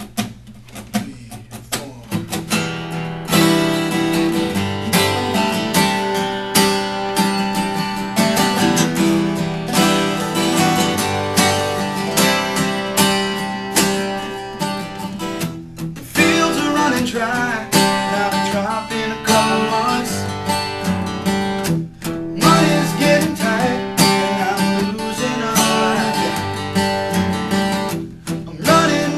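Strummed acoustic guitar playing the instrumental opening of a country song. It starts softly and fills out with a fuller, louder accompaniment about three seconds in.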